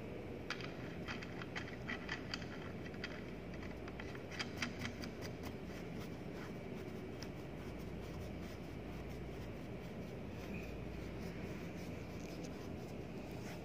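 Light clicks and scraping of a pump impeller being pushed and turned by hand onto its shaft, the clicks clustered in the first half, then only a low steady room hum.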